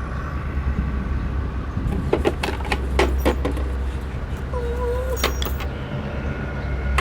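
A bunch of keys jangling and clicking as they are tried one after another in a door lock, in two clusters of sharp clicks, over a steady low rumble.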